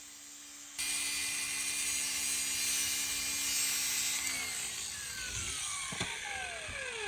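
Angle grinder fitted with a 200-grit polishing pad smoothing a cut tile edge. It runs with a steady hum, the pad bites into the tile with a loud, even grinding hiss a little under a second in, and then the motor is switched off and winds down in a long falling whine.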